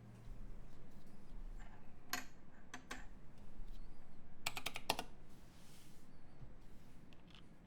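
Typing on a Primus 75 mechanical keyboard with lubed Turquoise Tealio linear switches, an aluminium plate and GMK doubleshot ABS keycaps: a quick, steady run of keystrokes with a few louder clacks among them.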